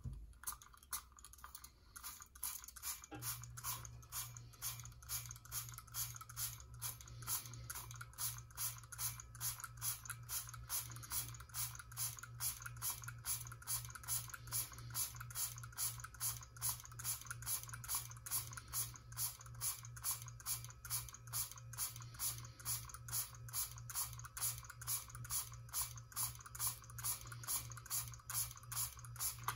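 Trigger pump of a Homedics Ozone Clean spray bottle squeezed over and over, about two to three sharp clicking sprays a second. A steady low hum comes in about three seconds in and runs underneath.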